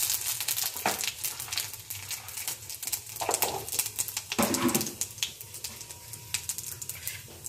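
Panch phoron seeds sizzling in hot oil in a kadhai, with a quick, irregular crackle of pops as the seeds splutter.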